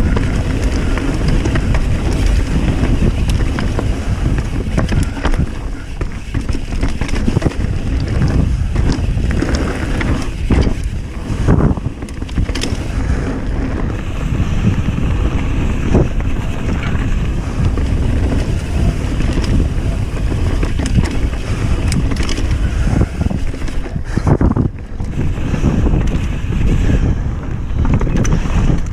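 Wind buffeting the camera microphone over the rumble of mountain bike tyres rolling fast down a dirt trail, with scattered knocks and rattles as the bike hits bumps.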